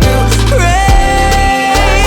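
Pop/R&B song playing with a sung vocal line over bass and drums.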